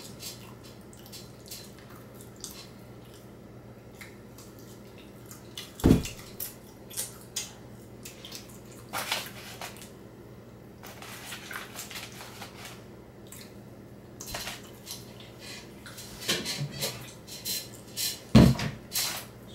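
Dishes and cutlery handled at a table: scattered small clinks and rustles, with two heavy knocks, one about six seconds in and one near the end.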